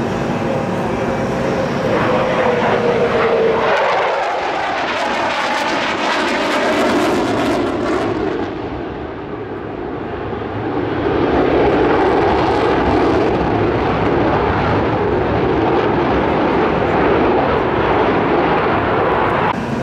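Jet noise from the F-15E Strike Eagle's twin turbofan engines as the jet flies its display passes. A falling whine in the first few seconds marks the jet passing. The noise eases briefly about nine seconds in, then swells loud again.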